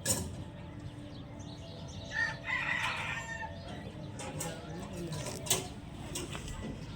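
A rooster crowing once, about two seconds in, with a couple of sharp knocks around it.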